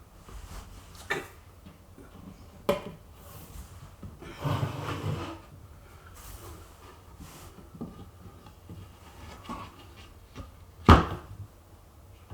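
Knocks and clunks of kitchen cabinetry being worked on. There are a couple of light knocks, a brief scraping slide about four and a half seconds in, and a sharp, loud knock near the end.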